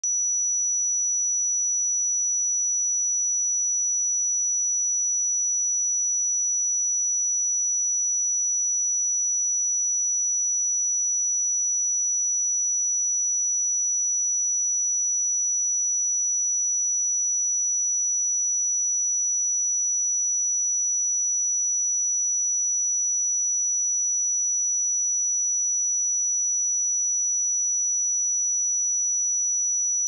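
A pure 5895 Hz sine-wave test tone, a single high-pitched steady tone held at constant level.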